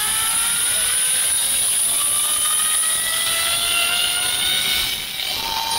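Zipline trolley's pulley wheels running along a steel cable: a whine of several tones that slowly rise in pitch as the riders gather speed, over a steady hiss.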